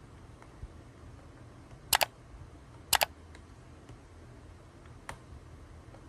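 Two mouse-click sound effects about a second apart, each a quick double click, over faint hiss, with a few light ticks from handling laptop parts.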